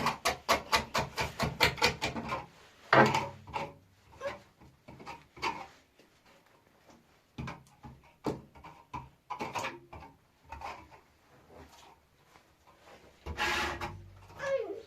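Hand work on wood: quick, regular rasping strokes for the first couple of seconds, then scattered scrapes and knocks, with a louder scraping stretch near the end.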